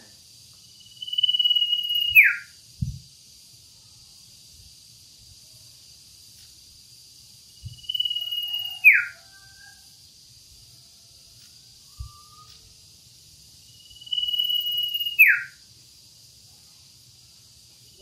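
Male common iora (cipoh or sirtu) calling, three times about six seconds apart. Each call is a clear whistle held level for about a second, then dropping sharply in pitch at the end. A few soft thumps fall between the calls, over a faint steady high buzz.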